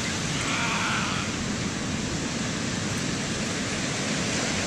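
Ocean surf breaking on the beach, a steady, unbroken rush of noise, with wind rumbling on the microphone.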